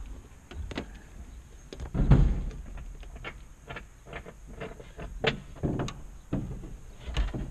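Scattered clicks and knocks of hands fitting and connecting a CB radio in a tractor cab, with a heavier thump about two seconds in.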